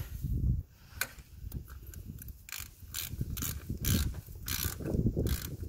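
Half-inch drive ratchet clicking in short bursts about twice a second as it is swung back and forth, running a screw plug tight.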